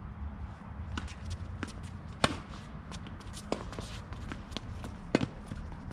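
A tennis rally on a hard court: a tennis ball struck sharply by rackets twice, about three seconds apart, with lighter ball bounces and footsteps on the court between, over a steady low rumble.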